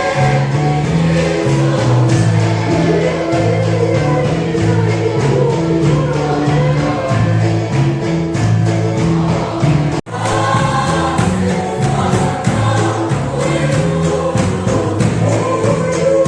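Music: a choir singing a gospel-style song over a steady beat and bass line, broken by a sudden split-second dropout about ten seconds in.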